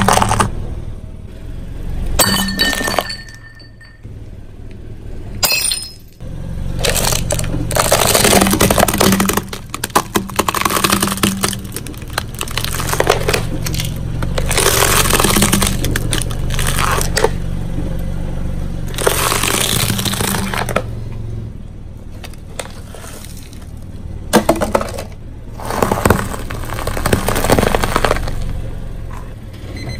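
A car tire rolling slowly over dry pasta and then a plastic jar packed with crunchy food, crushing them with crackling and crunching in several separate spells and the plastic jar splitting. A low steady hum runs under much of it.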